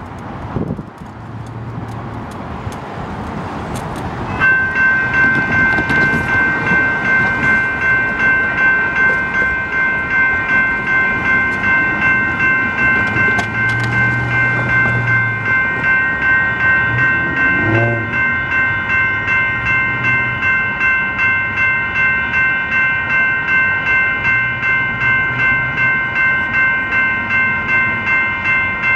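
Electronic railroad crossing bells (General Signals and Western Cullen Hayes Type 2) start ringing about four seconds in and keep up rapid, even dings: the crossing signals have been activated for an approaching train. Street traffic runs underneath.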